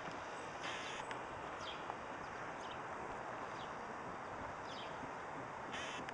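Small birds chirping, short falling chirps repeated every second or so, over a steady rushing background. A brief hiss comes about a second in and another near the end.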